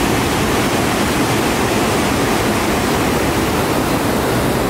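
White-water rapids of the Nile River rushing loudly and steadily.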